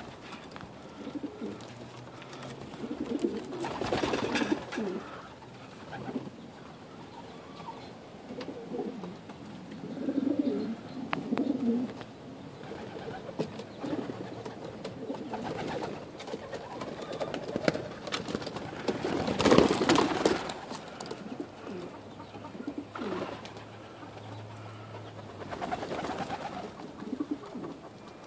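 Domestic pigeons cooing over and over in low, warbling coos. Two louder rushing bursts stand out, about four seconds in and again about twenty seconds in.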